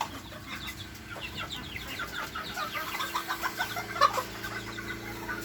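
Chickens clucking, a dense, overlapping stream of short calls, with one louder call about four seconds in.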